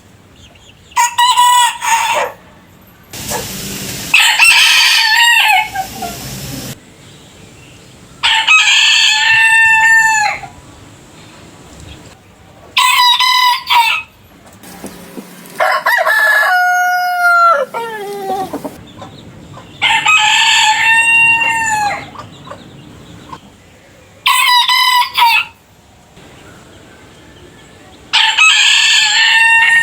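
Roosters crowing one after another, about eight crows, each a drawn-out cock-a-doodle-doo lasting one to three seconds. The crows come from different birds, each with its own pitch and length; one around the middle ends in a long falling glide.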